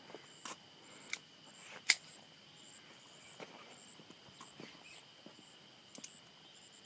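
A few sharp metallic clicks from handling suppressed .22 pistols at the bench, with one much louder snap about two seconds in and a close pair near the end, over a steady high insect drone.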